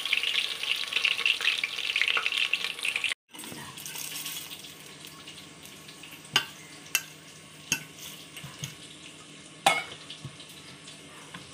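Potato pieces frying in hot oil in an aluminium pressure cooker, a steady loud sizzle as they are stirred with a spatula, cutting off suddenly about three seconds in. After that it is quieter, with a few sharp clinks and knocks as a ceramic plate and a steel bowl of whole spices are handled.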